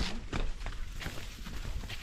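A hiker's footsteps on an overgrown jungle trail: uneven steps and knocks a couple of times a second, with a steady hiss of leaves and grass brushing.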